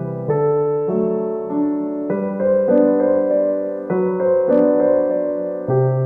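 Background music: a gentle piano tune, its notes and chords changing about every half second.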